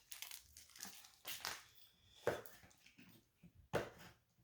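A pet dog making a handful of short, soft noises, spread through the quiet.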